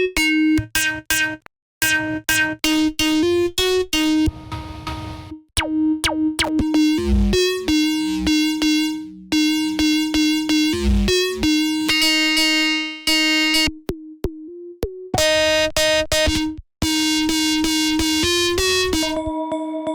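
Synthesizer presets from an Ableton instrument-rack pack played one after another on a single repeated note. The tone changes every second or two: short plucks, a breathy noisy tone, a falling pitch swoop, brighter buzzy notes, and thinner ringing tones near the end.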